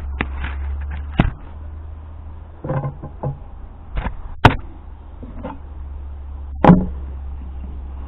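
Scattered knocks and clicks of tools and belt material being handled on a workbench, over a steady low hum. The two sharpest knocks come about four and a half seconds in and near the seven-second mark.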